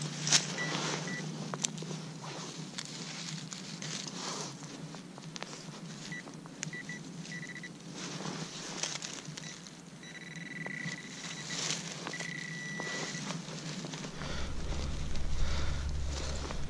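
A metal detector sounds several short high beeps, each at the same pitch. They come in quick runs, then as two longer held tones around the middle. Under them are rustling and scattered clicks of handling and digging in leaf litter and soil.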